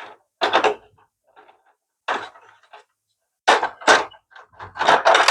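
Plastic keys of a Casio keyboard's key assembly clattering and knocking as the key set is worked loose and lifted out of the case, in about five short separate bursts, the busiest near the end.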